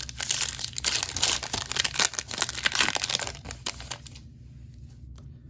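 Shiny foil wrapper of a Panini Donruss basketball card pack crinkling and crackling as it is torn open by hand. It stops about four seconds in, once the cards are out.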